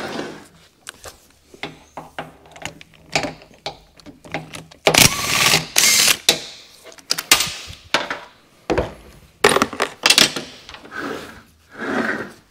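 Metal hand tools and transmission parts knocking and clattering during teardown of a 48RE automatic transmission, in irregular clicks and clanks. A louder, longer noise comes about five seconds in, and another near ten seconds.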